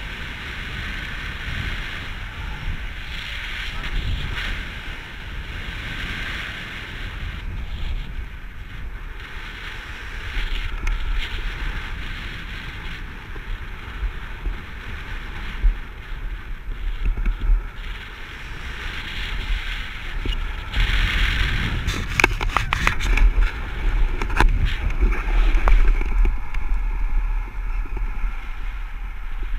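Airflow buffeting the microphone of a camera on a paraglider in flight: a steady rushing hiss over a gusty low rumble. A run of sharp clicks and rustles comes about three-quarters of the way through.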